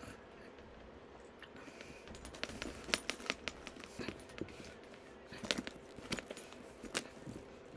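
A handbag being handled, with scattered small clicks and scrapes, the sharpest about three seconds in, midway and near the end.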